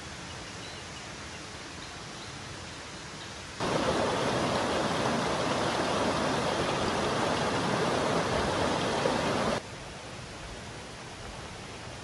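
Shallow forest stream running over rocks: a steady rushing wash that cuts in suddenly about three and a half seconds in and cuts off about six seconds later, with a quieter steady hiss before and after.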